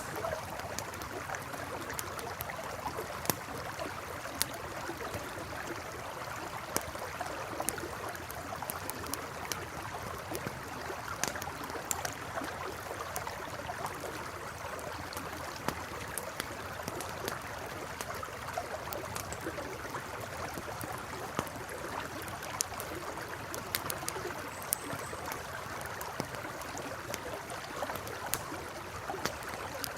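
River water flowing steadily, with a campfire crackling: frequent sharp pops and snaps from the burning wood, scattered irregularly over the rush of the water.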